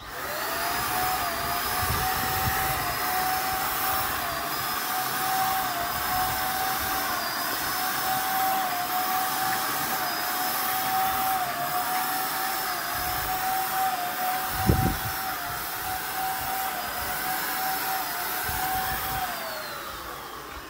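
Handheld electric paint spray gun running with a steady whine and hiss as it sprays paint. It winds down with a falling pitch near the end. A single brief thump comes about 15 seconds in.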